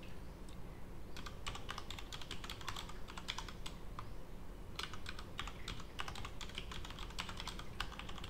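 Typing on a computer keyboard: two runs of rapid key clicks, each a few seconds long, with a pause of about a second between them, over a low steady room hum.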